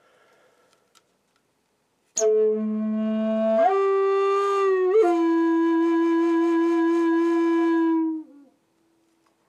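Wooden flute in A, played with a sharp breath attack about two seconds in. It holds a low note, steps up to a higher note with a quick ornament, and sustains it for several seconds before ending with a slight downward slide.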